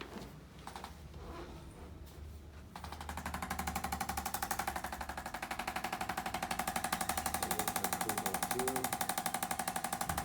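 A handheld electric percussion massager switches on about three seconds in and runs steadily, hammering rapidly with a steady hum.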